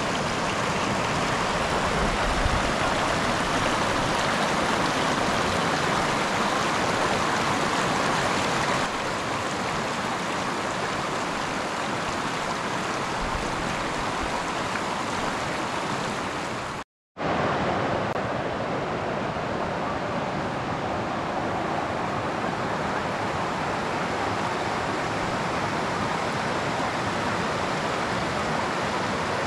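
Steady rushing of water pouring over low river rapids and small cascades. The sound drops slightly about a third of the way through and cuts out for an instant a little past halfway, then carries on.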